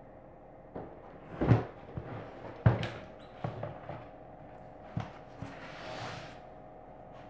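A woven water hyacinth storage basket being folded flat by hand: knocks and rustling of the woven panels. The loudest knock comes about a second and a half in and another just under three seconds in, followed by lighter taps and a brief rustle near the end.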